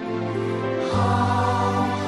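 Background music of sustained, held chords, changing chord about a second in.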